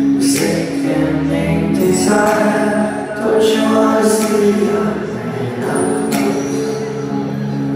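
Live pop band music from the stage: held chords over a beat with recurring cymbal strokes, heard from among the audience in a large hall.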